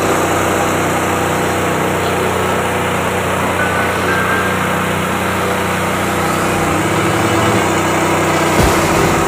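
Mini rice polishing (kebi) machine running steadily under its drive motor, growing slightly louder near the end.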